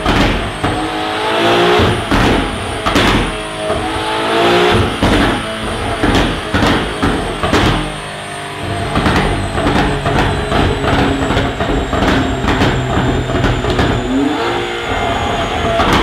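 Porsche 992 Carrera S twin-turbo flat-six running on a chassis dynamometer through a Fi Exhaust valvetronic exhaust with catless downpipes. The engine rises in pitch in several climbs over the first half, holds a steady note through the middle, and climbs again near the end.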